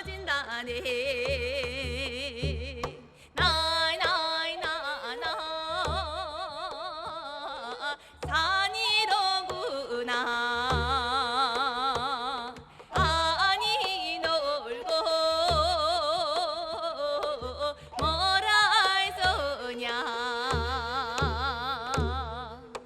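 Korean traditional vocal music (gugak): singing with a wide, heavy vibrato in phrases about five seconds long, over low drum beats.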